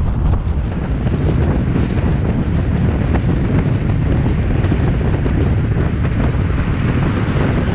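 Heavy wind rushing and buffeting over the microphone of a camera on a car moving at speed, with road noise underneath: a loud, steady roar.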